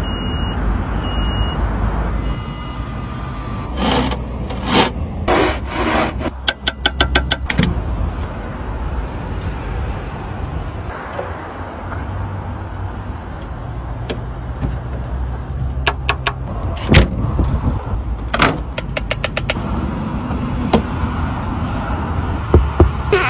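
A car's steady low rumble, with three short high beeps at the start and two bouts of sharp clicks and quick rattling click runs, the first a few seconds in and the second past the middle.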